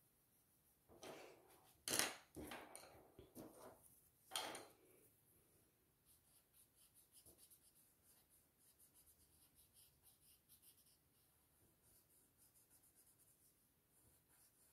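A few short knocks and clatters in the first five seconds, the loudest about two seconds in, as pencils and a blending stump are handled and set down on a wooden table. Then faint rubbing of a paper blending stump (tortillon) on drawing paper, smudging graphite shading into pencilled letters.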